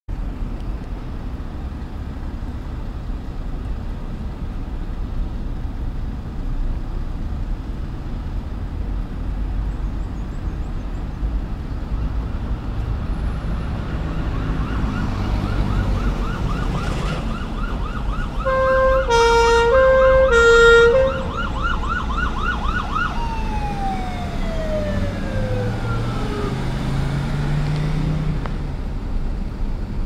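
SCDF ambulance's siren yelping with rapid, repeated sweeps. Partway through, its two-tone air horn sounds for about two seconds, alternating high and low notes; this is the loudest part. The siren pitch then falls away while the vehicle's engine rises, over steady road traffic.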